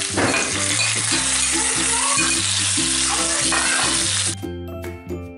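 Marinated chicken pieces sizzling as they are spooned into hot oil and onions in a stainless-steel kadhai and stirred with a steel spoon. The sizzling stops abruptly about four seconds in, leaving background music.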